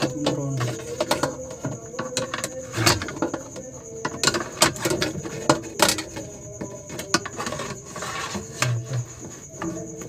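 Irregular sharp clicks and knocks over a steady high-pitched insect trill.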